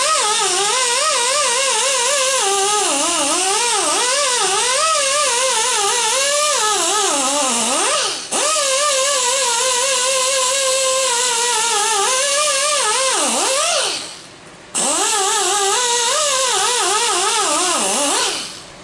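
Air-powered die grinder with a 3M scuffing pad whining as it scours a small engine piston, its pitch wavering up and down as the pad is pressed onto the metal. It dips briefly about eight seconds in, winds down and stops for about a second a little before the end, then runs again and cuts off.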